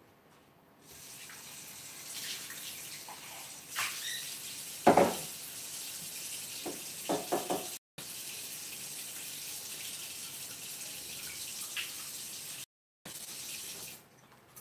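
Kitchen tap running steadily into the sink, turned on about a second in and off near the end, with a few knocks and clinks of things handled under it, the loudest about five seconds in.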